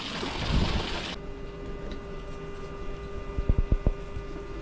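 Water gushing out of a bilge pump's discharge, stopping abruptly about a second in. Then the steady hum of the 12-volt electric bilge pump running underwater, draining the flooded hull, with a few low thumps.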